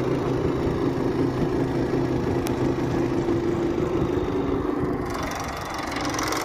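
Split AC indoor unit's blower running with a loud, rough, rattling knock over a steady hum, 'like a tractor': the sign of a fault in the blower assembly. The sound changes about five seconds in and fades at the end.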